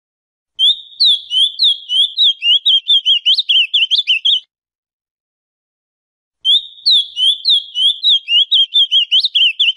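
Male ultramarine grosbeak (azulão, Cyanoloxia brissonii) singing two song phrases, each a rapid run of short sliding notes that quickens toward the end. The first lasts about four seconds; the second starts about two seconds after it ends and is still going at the end.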